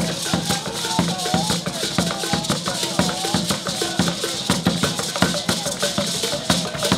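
Live traditional drumming with rattles: a steady, fast beat of drum strokes under constant shaking rattles, with voices singing over it.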